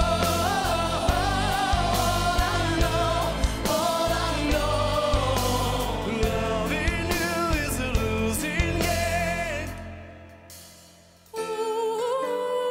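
A pop ballad sung live by a lead singer with a backing choir, the voice wavering with vibrato over a steady drum beat. About ten seconds in the music fades almost to silence, then a soft held sung note comes back suddenly near the end.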